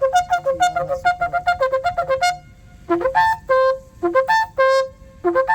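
Shofar (ram's horn) blown in a fast run of short staccato blasts, flipping between two notes, for about two seconds. After a short pause come five separate short blasts, each sliding up into its note.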